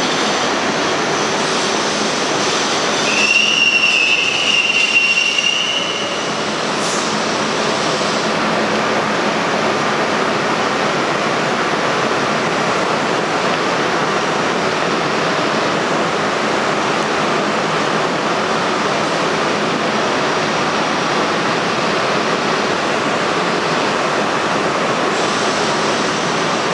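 New York City Subway train running through an underground station, a steady loud rumble of wheels on rail. About three seconds in, a high wheel squeal sounds for roughly three seconds.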